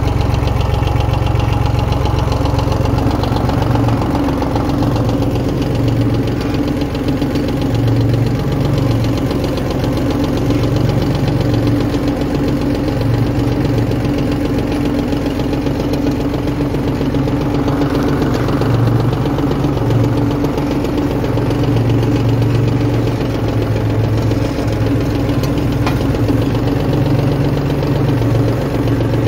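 Ford 1910 tractor's three-cylinder diesel engine running steadily while plowing, heard from the driver's seat.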